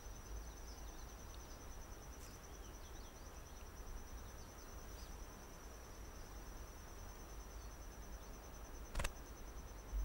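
Faint, steady high-pitched insect trill, a rapid even pulsing, over quiet natural ambience, with one brief click about nine seconds in.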